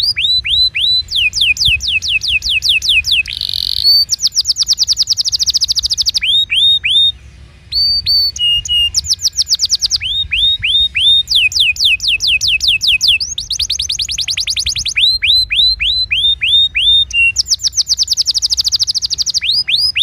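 Domestic canary singing: a long song of rolled phrases, each a run of rapidly repeated whistled notes that sweep downward, some runs fast and high, others slower and lower. There is a brief break about seven seconds in.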